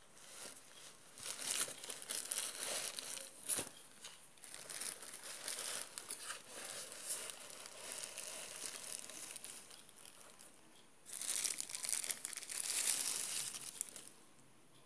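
Clear plastic bag crinkling and rustling as a metal socket wrench handle is unwrapped from it, with a sharp click about three and a half seconds in. The crinkling comes in two long spells, the second starting about eleven seconds in.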